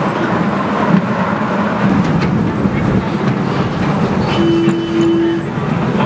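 Ride-on miniature train running, heard from aboard: a steady rumble of wheels on the rails with scattered light clicks. A short steady tone sounds about four and a half seconds in and lasts about a second.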